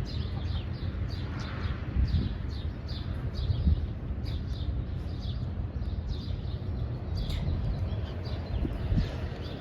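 Wind buffeting the microphone in a loud, uneven low rumble, with small birds chirping over it in many short, high, falling notes.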